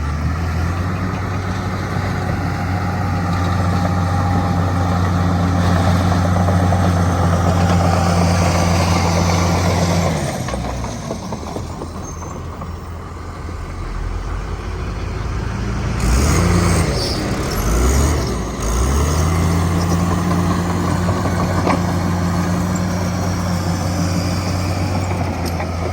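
Bulldozer's diesel engine working, a steady low drone that eases off about ten seconds in, revs up and down a few times shortly after, then settles back to a steady drone.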